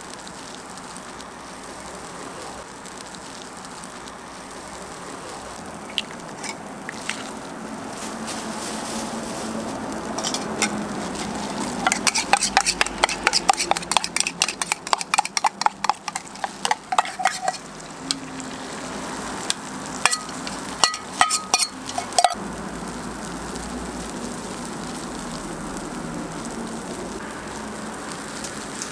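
Egg batter sizzling steadily on a flat-top griddle. Midway through, a metal spoon clinks quickly against a stainless steel cup, about five times a second, as egg and cabbage are beaten in it, and a few more clinks follow later.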